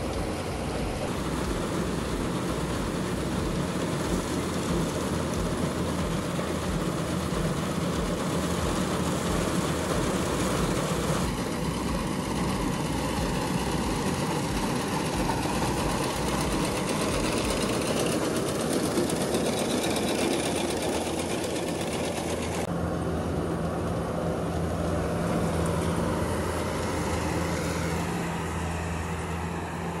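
Heavy diesel farm machinery running steadily, a combine harvester or tractor at work. The engine hum and noise change abruptly about a third of the way in and again near three quarters of the way through.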